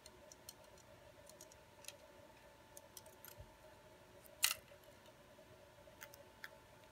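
Faint small clicks and ticks as a replacement phone display is lined up and set down onto the phone's metal frame, with one sharper click about four and a half seconds in. A faint steady hum runs underneath.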